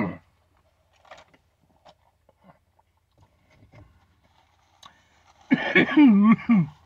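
A man coughing and sputtering into a napkin about five and a half seconds in, after a few faint clicks: food has gone down the wrong pipe.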